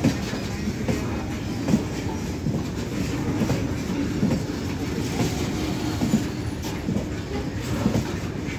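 Loaded BOXN open freight wagons rolling past close by: a steady rumble of wheels on rail with irregular clacks and knocks as the wheels cross the rail joints.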